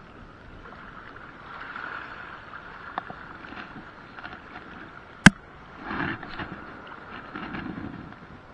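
Choppy water lapping and splashing close to the microphone, with a single sharp click about five seconds in and a louder splash just after it.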